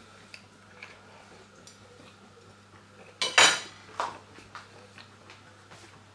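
Cutlery and dishes clinking, with small scattered clicks and one loud clatter about three seconds in, followed by a smaller knock a second later.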